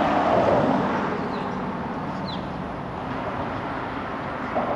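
Outdoor background rush, loudest in the first second and then easing off, with a faint short chirp about two seconds in.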